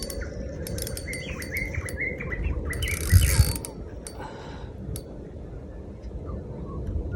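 Fishing reel turning with a ratcheting click as a bream is reeled in, with a louder noisy burst about three seconds in.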